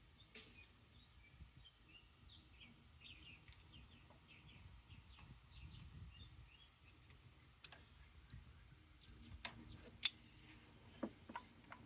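Faint small-bird chirping, many short quick chirps over the first half, then a few sharp clicks and knocks in the second half, the loudest about ten seconds in.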